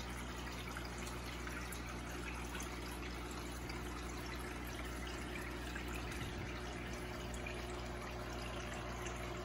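Steady trickling and splashing of aquarium water, with a low steady hum underneath from the tank's running equipment.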